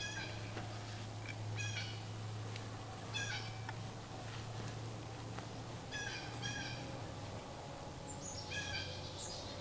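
A wild turkey gobbling: about five short rattling calls a couple of seconds apart.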